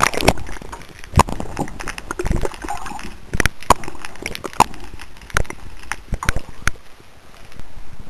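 A series of irregular sharp knocks and clicks, about a dozen strong ones spread unevenly over several seconds, over a rough background noise.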